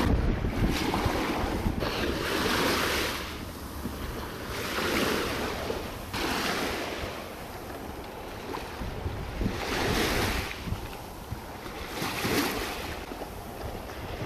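Choppy sea water splashing and sloshing in surges every two to three seconds, with low wind rumble on the microphone.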